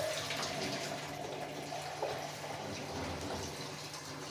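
Water pouring steadily into the reservoir of a drip coffee machine as it is filled.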